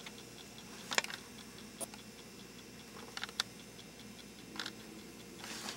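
Low background hum broken by a few faint, short clicks and taps, from a camcorder being handled.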